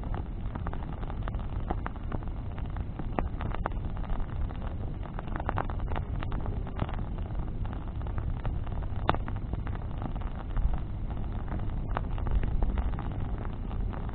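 Bonfire of burning wood crackling, with frequent sharp irregular pops over a steady low rumble.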